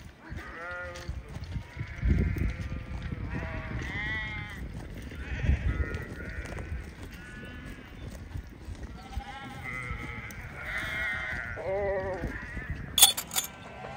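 A flock of sheep bleating, many calls overlapping one another. A low rumble comes about two and five and a half seconds in, and a couple of sharp clicks sound near the end.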